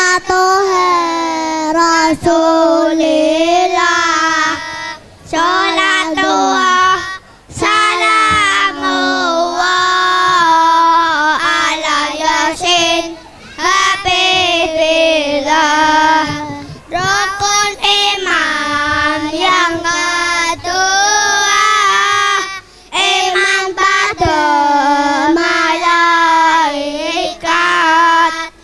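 A group of young boys singing together into microphones, in sung phrases broken by short pauses.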